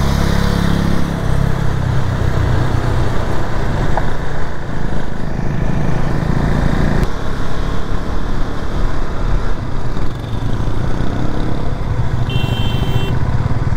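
KTM RC390's single-cylinder engine running steadily while riding, heard on board the bike. The engine note changes abruptly about seven seconds in, and a brief high beep sounds near the end.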